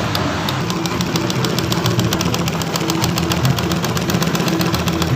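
Sewing machine running steadily while stitching tarpaulin: a fast, even ticking of the needle strokes over a low motor hum.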